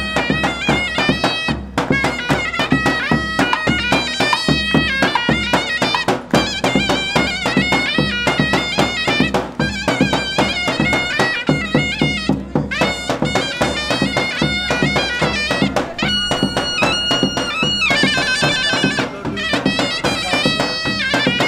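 Zurna playing a fast, shrill folk dance tune over the steady beat of a nagara drum, with a long held note and then a quick warbling trill near the end.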